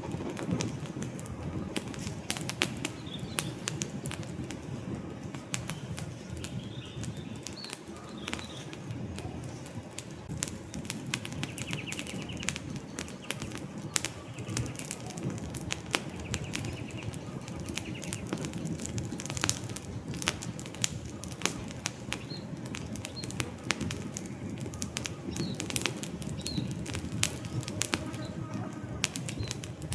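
Campfire of burning wood logs crackling, with frequent irregular snaps and pops over a steady low rustle of flames. Faint bird chirps come through now and then.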